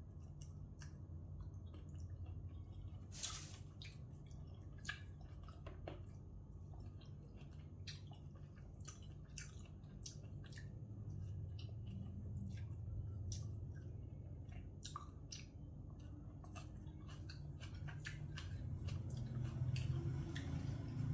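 Close-up eating sounds: a person chewing a wet glass-noodle seafood salad, with many short wet mouth clicks and smacks, over a steady low hum.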